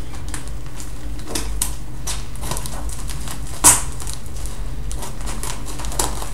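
A phone's retail box being handled and opened: scattered light taps, scrapes and clicks of cardboard and packaging, with one sharp click a little past halfway, over a steady low hum.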